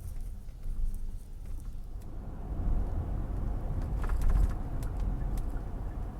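Low, steady rumbling background noise with a few faint clicks, swelling a little in the middle.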